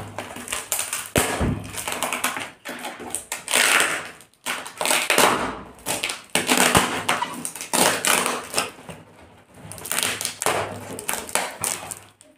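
Scissors cutting into a parcel's plastic wrap and packing tape, with plastic and cardboard crinkling and tearing in irregular rasping bursts and sharp snips.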